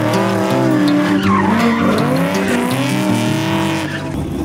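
1968 Chevrolet Camaro drifting, tyres squealing and skidding while the engine runs hard.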